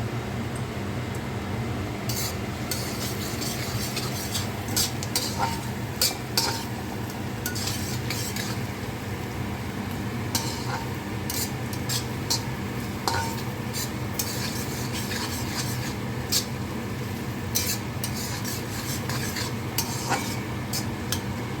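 Chopped onions, garlic and chilies sizzling in hot oil in a heavy-bottomed karahi. A utensil scrapes and knocks irregularly against the pan as they are stirred, starting about two seconds in.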